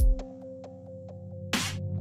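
Electronic music: a heavy bass hit at the start, then a held bass note under short clicking beats about four a second, with a rushing noise swell near the end.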